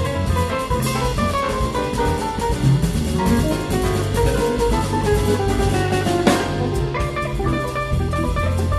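Live instrumental samba-jazz band: an archtop electric guitar plays a melodic line over drum kit, bass and piano, with a cymbal crash about six seconds in.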